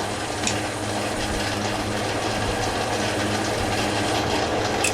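Belt-driven metal lathe running steadily, its motor and belt drive giving a low hum under a mechanical whir, with a short tick about half a second in and another near the end.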